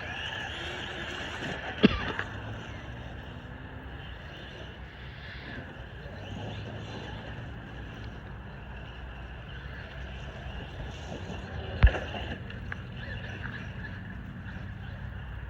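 Traxxas Maxx electric RC monster truck running on 3S, a steady whine over rumble and hiss. Two sharp impacts, about two seconds in and about twelve seconds in, are the loudest sounds.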